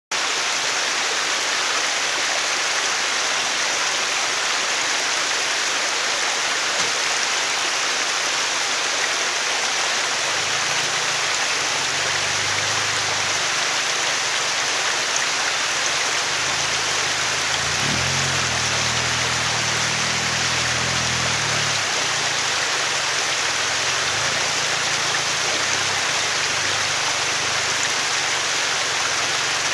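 Small mountain stream rushing over boulders, a steady hiss. Underneath, a lifted Toyota Hilux Surf's engine joins in from about ten seconds in, rising a little past halfway as the 4x4 crawls on the rocky creek bed and dropping away again a few seconds later.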